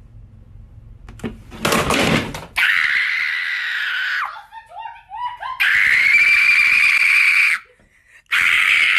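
A person screaming in fright at a cockroach on the floor: three long, high-pitched shrieks with short yelps between the first two. A brief rough noise comes just before the first shriek.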